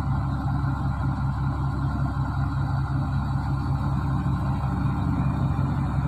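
LiuGong B320 crawler bulldozer's diesel engine running steadily at constant speed, a low, even drone with no revving.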